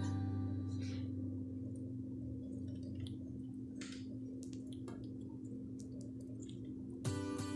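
A faint, steady low hum with a few soft clicks scattered through it. Near the end, guitar background music starts.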